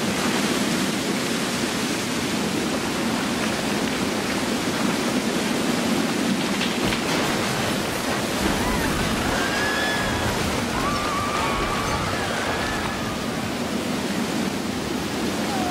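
Steady rushing of a fast-flowing torrent of volcanic mud, a lahar, pouring through a river channel. From about eight seconds in, faint high wavering cries sound over it.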